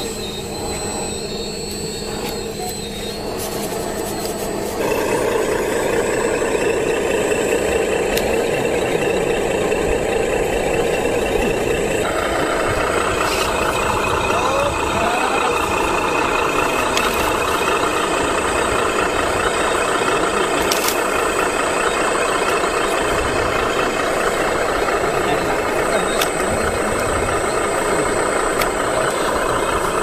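Radio-controlled scale hydraulic excavator working, with its hydraulic pump and motors running steadily. The sound gets louder about five seconds in.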